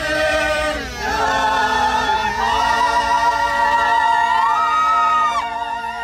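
A choir singing a cappella together, holding long sustained chords in several parts; a higher voice rises to a new note near the end before the chord cuts off. A low steady rumble runs underneath.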